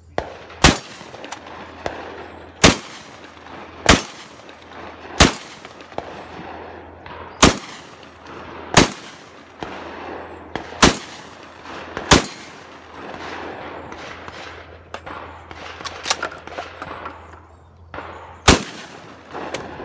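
Shotgun shots fired one at a time, about nine in all, a second or two apart, with a gap of several seconds before the last shot near the end.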